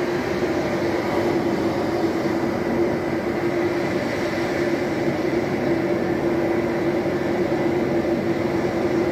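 Electric fan running with a steady hum and whoosh, blended with a recording of ocean waves playing from a TV.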